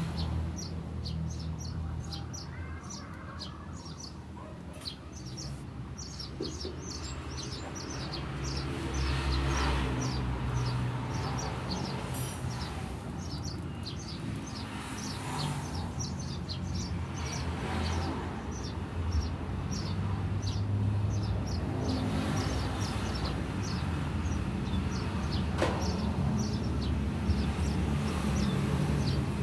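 Eurasian tree sparrows chirping: quick series of short, high chirps in a chattering 'ngriwik' call, over a steady low rumble of background noise.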